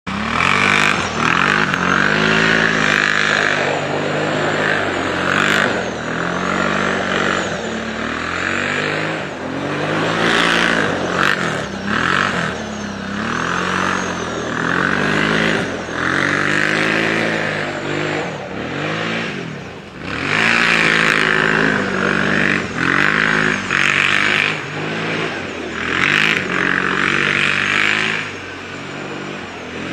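Kawasaki Brute Force ATV engine revving up and down over and over as the quad is driven through turns on packed snow. It grows quieter near the end as it moves away.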